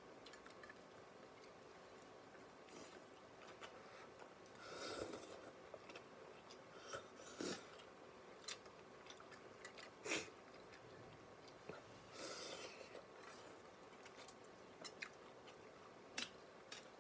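Faint mouth sounds of a person eating noodles: quiet chewing and a few short slurps, with scattered small clicks.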